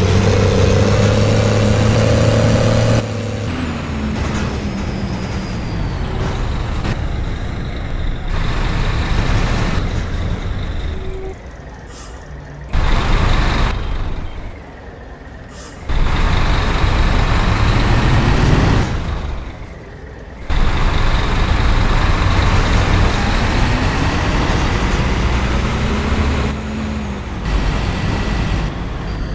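Diesel bus engines with a truck-like sound, running and accelerating so that the engine note rises in pitch several times. The sound changes abruptly several times, as between separate recordings.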